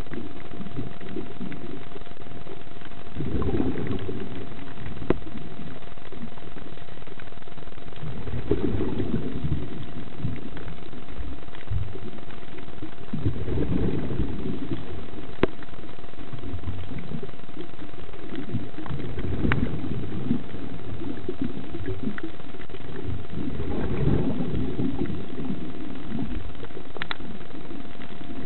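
Underwater recording of a scuba diver's breathing: exhaled bubbles from the regulator rumble in low surges about every five seconds. A faint steady whine and a few sharp clicks sit under them.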